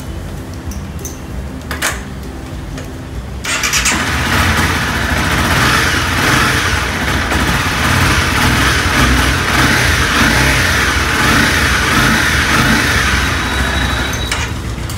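Honda CBR motorcycle engine running, with a click about two seconds in; about three and a half seconds in it turns much louder as the throttle is opened, and stays loud and wavering.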